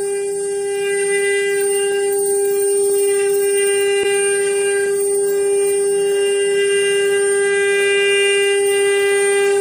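The spindles of an eight-head 4-axis rotary CNC router running together as they carve in the finishing pass, a steady, unchanging high whine.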